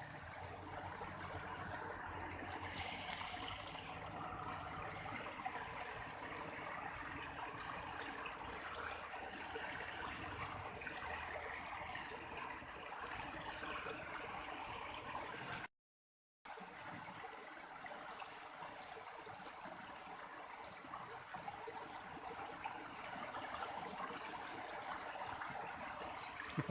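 Water running steadily in an irrigation channel, an even rushing and trickling, broken by a brief cut to silence a little past halfway.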